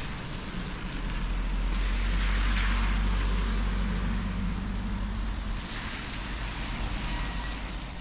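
A car passing on a wet road, its tyre hiss swelling to a peak about two to three seconds in and then fading, over a steady low rumble.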